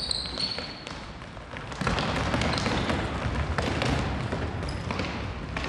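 Futsal ball being kicked and bouncing on a wooden sports-hall floor amid players' running footsteps: a string of knocks and thuds that grows busier and louder about two seconds in.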